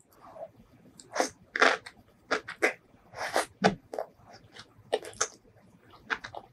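Close-miked eating sounds: a person biting into and chewing spicy food, a run of irregular sharp crackles.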